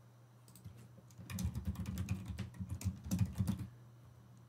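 Typing on a computer keyboard: a quick run of keystrokes starting a little over a second in, with a brief pause midway, stopping about a second before the end.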